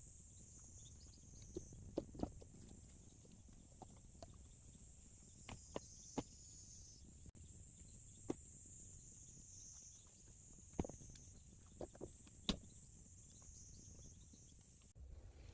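Faint steady high chirring of an insect chorus, with scattered short light knocks and clicks.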